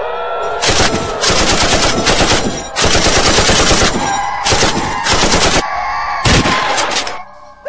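Rapid automatic gunfire, a machine-gun sound effect, in several long bursts starting about a second in, then one short final burst near the end that cuts off abruptly.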